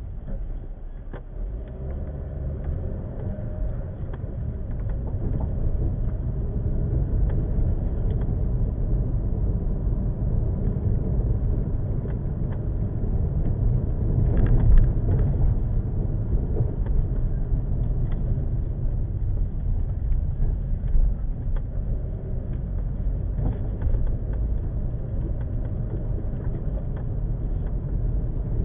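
Car driving, heard from inside the cabin: a steady low rumble of engine and tyres on the road, with scattered small knocks and a brief louder swell about halfway through.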